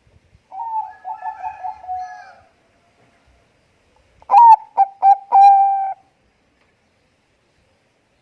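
Zebra dove (perkutut bangkok) cooing in two phrases. The first is quieter and made of rapid stuttering notes. The second, about two seconds later, is louder, opening with a few sharp clipped notes and ending on a held coo.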